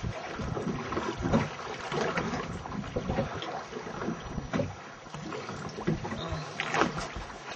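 Wind buffeting the microphone aboard a small boat at sea, coming in uneven gusts, with no engine note.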